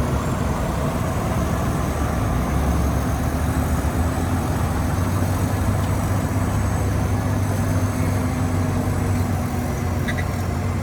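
Heavy earth-moving machinery's diesel engine running steadily, a deep drone that holds one pitch throughout.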